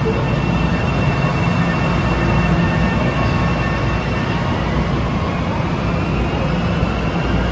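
Long Island Rail Road M7 electric multiple-unit train pulling out of the station: a steady rolling rumble with a high electric whine that rises slightly near the end as it gathers speed.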